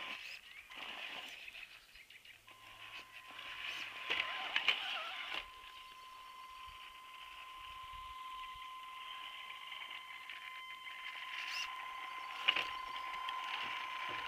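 Electric Tamiya CC-01 RC crawler driving over forest ground: a steady whine from its motor and drivetrain. A few sharp clicks and knocks come from the chassis and wheels climbing over branches and rocks, the loudest about four and a half and twelve and a half seconds in.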